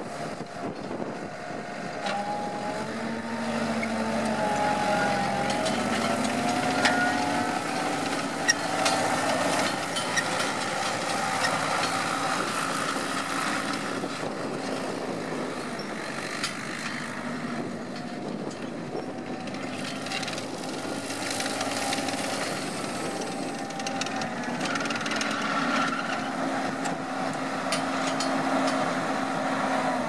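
ASV PT100 compact track loader's diesel engine running as the machine drives about, its pitch rising and falling with engine speed, with scattered clicks and knocks from the tracks and undercarriage. The engine winds down at the very end.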